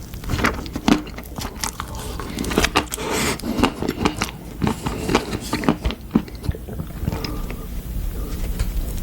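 Close-miked eating sounds: a person biting and chewing food, with many sharp, irregular clicks that are busiest in the first six seconds.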